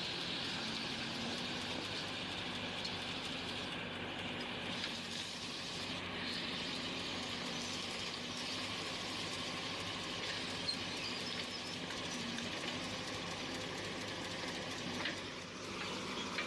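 Heavy road-works machinery running steadily: a constant engine drone under a noisy hiss.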